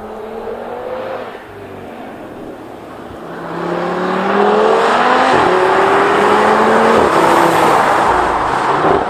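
Audi TT RS Roadster's turbocharged five-cylinder engine with sports exhaust, accelerating hard past the camera. The engine note climbs in pitch and drops back twice as it shifts up. It is faint at first and loud from about four seconds in.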